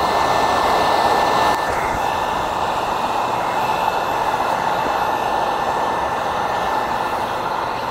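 Handheld electric heat gun running steadily, blowing hot air onto smoked vinyl tint film to soften it so it tacks down over the taillight's curves. A steady rush of air with a faint thin whine.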